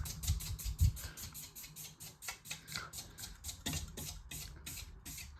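52-inch Emerson ProSeries ceiling fan running with a steady rhythmic ticking, about five ticks a second at first and slowing toward the end, over a low hum.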